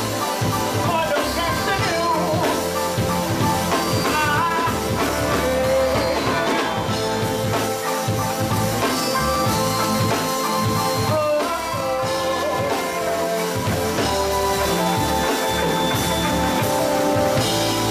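Live band playing, with drum kit, electric guitar and keyboards; a woman sings over it in the first few seconds, and the music carries on with held notes after that.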